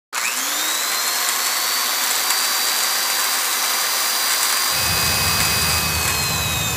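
A jet-engine-like whine over heavy hiss: it rises quickly at the start, holds steady, and drops away near the end. About four and a half seconds in, a truck's low engine and road rumble joins it.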